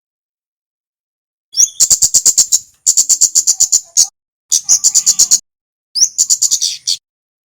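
A male kemade bird singing: about a second and a half of silence, then four bursts of rapid, high-pitched chipping notes. Each burst runs about eight to ten notes a second for roughly a second, and some open with a short rising slur.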